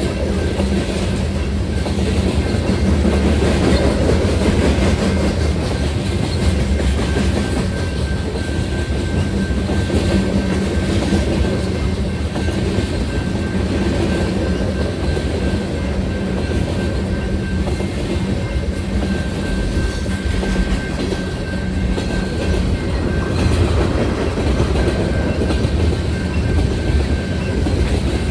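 Freight cars of a long manifest train rolling past, with a steady rumble and wheel clatter over the rail joints.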